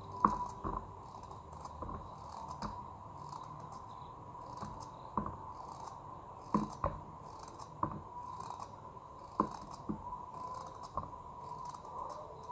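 Knife cutting a carrot into rounds on a cutting board: a dozen or so sharp knocks at uneven intervals, one per slice. A high, regular chirping pulses in the background.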